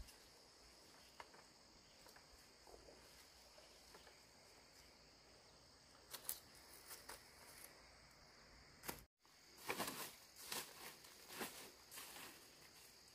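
Faint, steady high-pitched insect chirring in the background, with scattered light clicks and knocks that cluster in the second half. The sound drops out briefly about nine seconds in.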